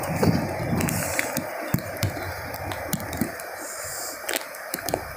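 Wind buffeting the microphone over a steady rush of heavy rain and surf, with scattered sharp taps; the buffeting eases about a second and a half in.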